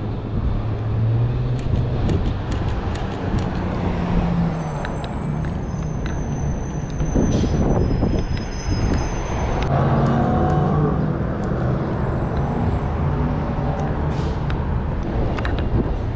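City street traffic with engines running. A high brake squeal lasts several seconds, and a short hiss comes about seven seconds in, like the air brakes of a heavy vehicle stopping.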